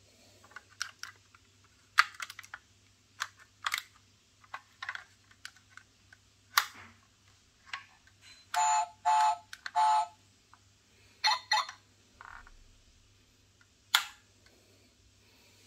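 Scattered clicks and taps from a 1:32 diecast metal Ford F-150 Raptor toy truck being handled, as its parts and sprung wheels are worked by hand. A run of five short squeaks comes a little past halfway.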